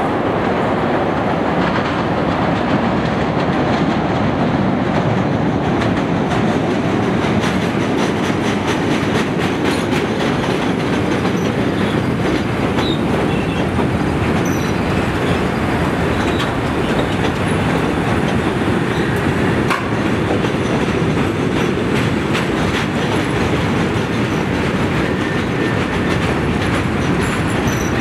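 A Chicago 'L' rapid-transit train of Morrison-Knudsen 3200-series and Budd 2600-series cars rolls into an elevated station, its wheels rumbling steadily on the track. The wheels click rapidly as they cross the switches, and a thin, high wheel squeal comes in near the end.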